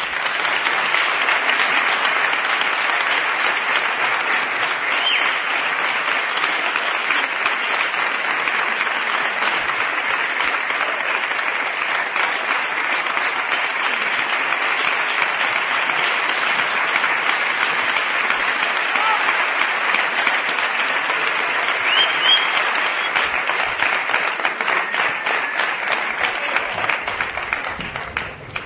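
Theatre audience applauding steadily at a curtain call, the clapping easing off near the end.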